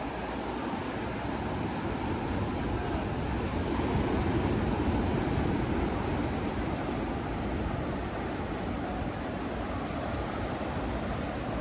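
Ocean surf washing on the beach in a steady rush, swelling a little about four seconds in, with wind buffeting the microphone.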